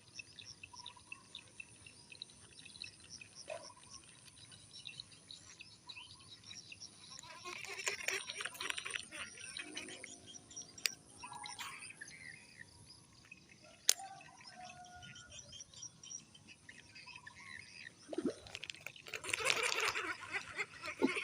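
Outdoor ambience of birds chirping over a steady high insect hum. There are two louder rushing, splashy bursts of noise, about eight and twenty seconds in, and a single sharp click a little after halfway.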